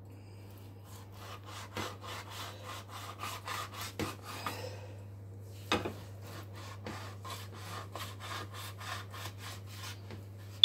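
Kitchen knife sawing back and forth through raw pork belly with the rind on, on a plastic cutting board: about three strokes a second, with a few sharper knocks as the blade meets the board.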